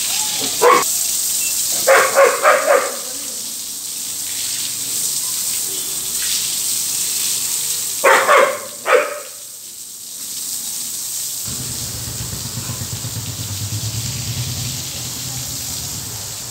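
Pakistani Bully dog barking to keep out someone at the gate: one bark, then a quick run of four, then two more about eight seconds in. A steady hiss runs behind the barks, and a low hum comes in near the end.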